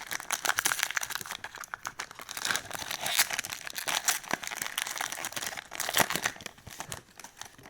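Foil Pokémon card booster pack wrapper crinkling as it is handled and torn open by hand, a dense crackle that dies away near the end.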